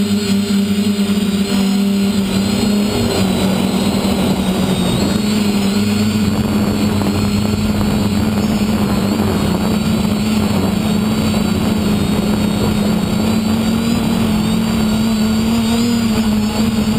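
Small electric quadcopter motors and propellers buzzing steadily, heard through the onboard camera, with a high whine that wavers a little in pitch. A rushing noise rises over the buzz from about three seconds in.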